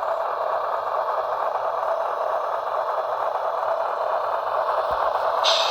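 Sound decoder of an HO scale Union Pacific Dash 9 model locomotive playing its diesel engine running sound through the model's small speaker, a steady noisy drone. A short higher hiss comes near the end.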